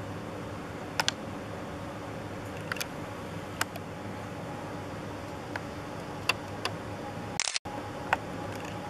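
Handling noise from a handheld camera: scattered sharp clicks and ticks over a steady low background hum. Near the end a brief hiss is followed by a split second of silence.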